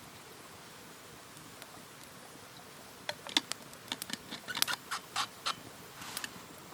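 Quiet steady background hiss, then from about three seconds in a quick, irregular run of sharp clicks and snaps lasting two or three seconds.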